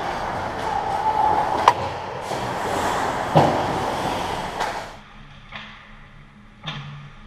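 Ice hockey play close to the goal: skates scraping and carving the ice, with sharp clacks of stick and puck about two and three and a half seconds in. About five seconds in the sound drops to a quieter stretch, with one more clack near the end.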